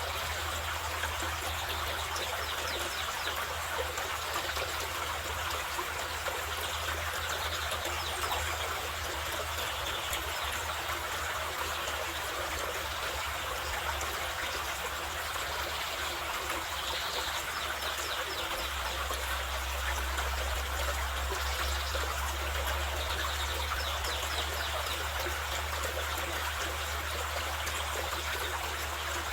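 Carpathian mountain river flowing, a steady, even rush of water.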